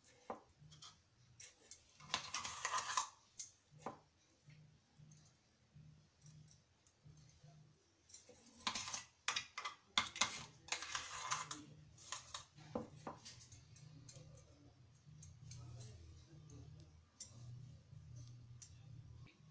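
Metal spoon scraping thick paste out of a steel mixer-grinder jar and scooping it into a small plastic cup: scattered clicks and short scrapes, the longest about two seconds in and again from about nine to eleven seconds.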